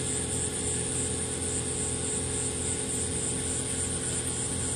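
Steady background of high, evenly pulsing insect chirring over a low, constant hum.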